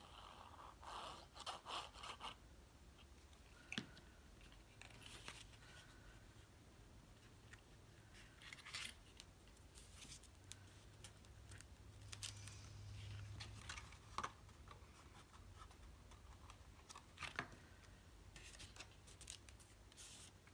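Faint, scattered rustles and light clicks of cardstock pieces being handled and pressed together as a glued tab is attached.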